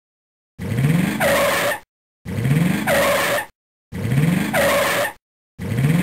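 A short sound effect, the kind that accompanies slide animations, played four times in a row and identical each time, about every second and a half. Each play is a tone rising in pitch followed by a louder, higher screech.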